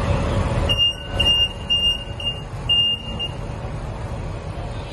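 An electronic warning beeper sounds five short, high, single-pitched beeps, about two a second, over a steady low rumble.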